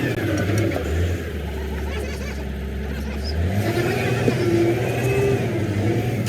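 An engine running steadily. Its pitch drops lower about a second in and comes back up a little after three seconds.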